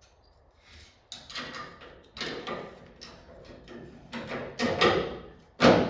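Metal trim clips and chrome molding clattering and scraping as they are pushed into place on a 1964 Impala's front grille. It is an uneven series of sharp clicks and scrapes, the loudest near the end.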